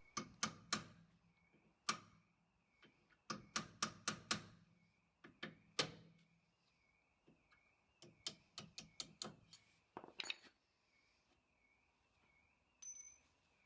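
Sharp metallic taps and clicks in irregular bursts, some in quick runs, from working the retaining pin out of a 2003 Fiat Punto's front brake caliper and taking out the brake pads.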